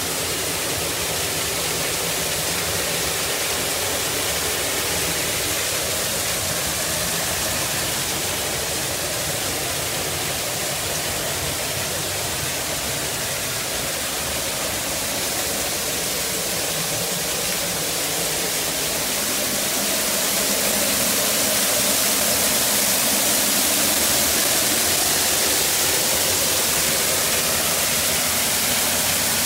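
Steady rushing of an artificial waterfall, heard from a rock cave beside it. It gets a little louder about two-thirds of the way through.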